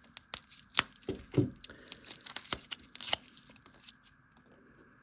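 Hand-handling of packaging: short rustling and tearing noises with several sharp clicks, busiest in the first three seconds and quieter after.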